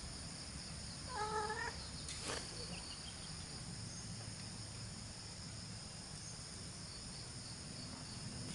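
A cat meows once, briefly, about a second in, with a single click shortly after. A steady high-pitched insect buzz runs underneath.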